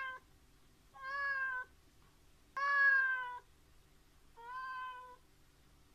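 Domestic cat meowing to be fed: three clear meows, each under a second long, a little under a second apart, each holding its pitch then dipping slightly at the end.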